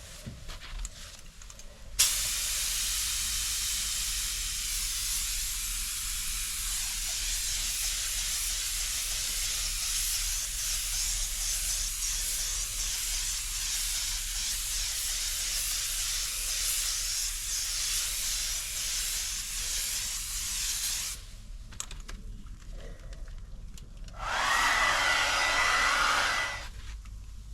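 Compressed air hissing through an Iwata LPH 80 touch-up spray gun, starting suddenly about two seconds in and running steadily for about nineteen seconds. A second, shorter and louder blast of air with a thin whistle follows a few seconds before the end.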